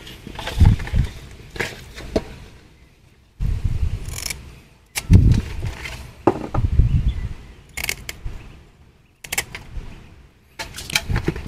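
Scissors snipping the fins off a snakehead fish in a metal basin: several short sharp snips, with dull knocks and handling noises as the fish is turned over in the basin.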